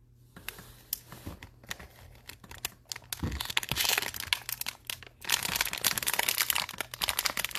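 Plastic wrapper of a trading-card pack crinkling and being torn open by hand, an irregular run of crackles and rips that grows louder and busier after the first few seconds.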